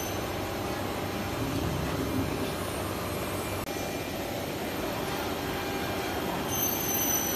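Steady machinery noise of a CNC router workshop, a continuous mechanical hum, with a faint high whine coming in near the end.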